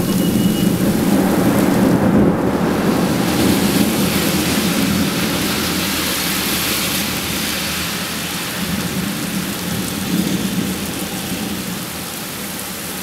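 Rain falling steadily in a thunderstorm, with a continuous low rumble of thunder under it that eases slightly toward the end.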